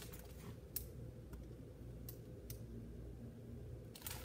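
Faint, scattered clicks and light rustling from a hardcover picture book being held and handled, over a steady low hum; the clicks cluster together near the end.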